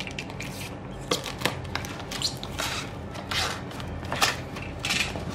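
Taped cardboard shipping box being pulled and torn open by hand: a string of irregular scrapes and rips of cardboard and packing tape.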